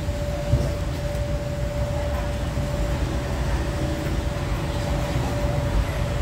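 Street traffic rumbling steadily, with a constant thin hum over it and one sharp click about half a second in.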